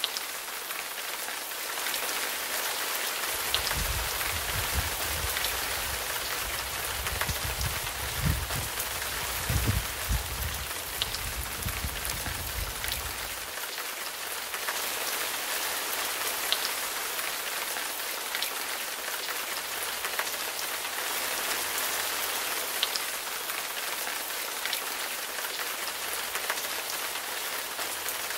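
Steady rain falling, an even hiss with scattered drops ticking. A low rumble comes in about three seconds in and stops about thirteen seconds in.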